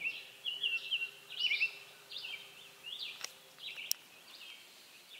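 Wild birds chirping in the forest, a busy run of short repeated calls that thins out toward the end, with two sharp clicks a little past halfway.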